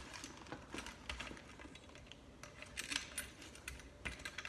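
Faint, irregular small clicks and taps of hands and parts working a threaded cord insulator loose from a garbage disposal's power cable.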